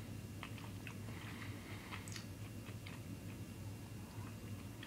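Faint, scattered small clicks and crinkles from soft chewing and fingers handling a small candy wrapper, over a low steady hum.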